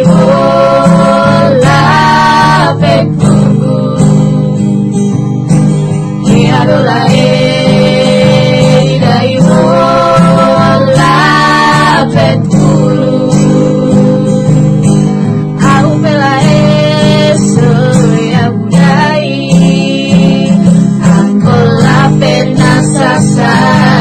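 Three women singing a song together, accompanied by an acoustic guitar. The singing comes in phrases with short breaks, over steady guitar chords.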